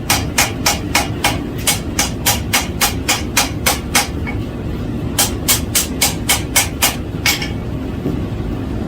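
Blacksmith's hand hammer striking a forge weld on the anvil in a steady run of about three and a half blows a second, setting the weld. The blows pause for about a second in the middle, then resume for a shorter run. A steady low rumble runs underneath.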